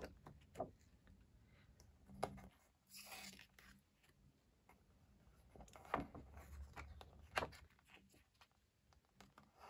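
Faint paper-handling sounds from a K-pop album photobook being leafed through: a few soft taps and clicks and a brief page rustle about three seconds in.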